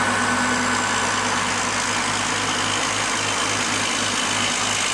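Heavy truck diesel engine running steadily under load as the truck climbs a steep grade, with a gentle low throb.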